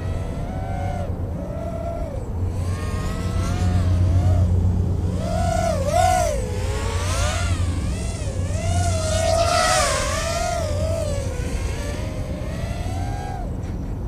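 LitisRC Cicada 180 4-inch racing quadcopter's brushless motors whining in flight, the pitch rising and falling constantly with throttle, over a steady low hum. It is loudest around four to six seconds in and again near ten seconds.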